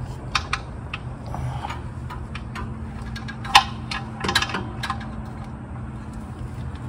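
Scattered metallic clicks and clinks of hand tools being handled, a socket going onto a torque wrench, with the sharpest clink about three and a half seconds in and a few more a second later, over a faint steady low hum.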